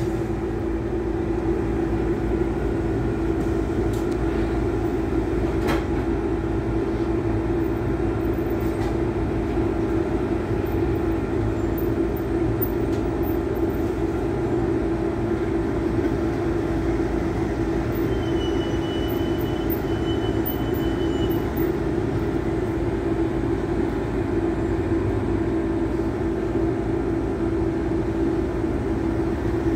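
Double-decker bus engine and cabin noise heard from inside the upper deck: a steady low hum and rumble as the bus creeps along in slow traffic.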